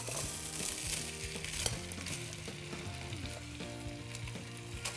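Rice and chopped vegetables sizzling as they are spooned from a glass bowl into a hot roasting pan greasy with fat from browned lamb, with a steady hiss and a few clicks of the spoon against the bowl and pan.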